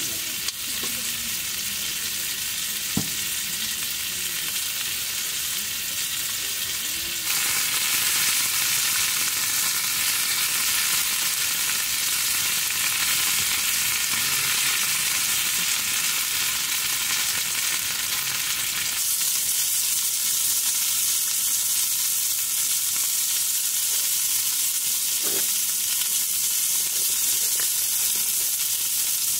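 Chicken thigh skewers sizzling on a small ridged grill plate over a gas burner: a steady hiss of frying meat, louder from about seven seconds in, with a couple of light knocks.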